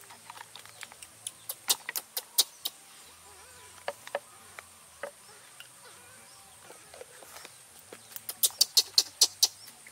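Sharp taps and clicks of a plastic scoop against a formula tin and glass feeding bottle as powdered baby formula is spooned out and the bottle is handled, with a quick run of about six taps a second near the end.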